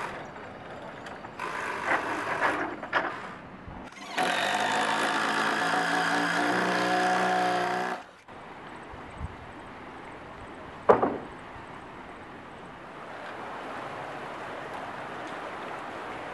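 Cordless drill motor running steadily for about four seconds, then cutting off suddenly. Before it come irregular work noises, and later one sharp knock over a quieter outdoor background.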